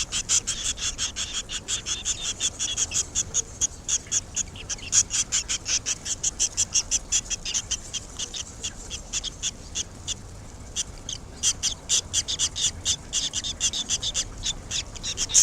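Red-rumped swallow nestlings chirping in the nest: a long run of short, high-pitched chirps, about four to five a second, that thins out briefly about ten seconds in.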